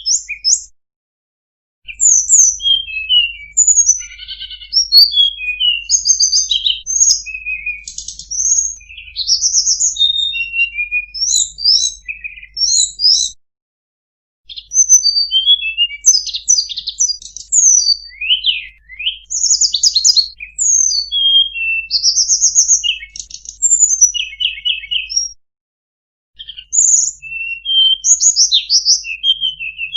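Tledekan gunung songbird singing a fast, varied song of high chirps, trills and quick sweeping whistles, full of mimicked phrases. The song runs in long bursts with brief silent breaks about one, thirteen and twenty-five seconds in.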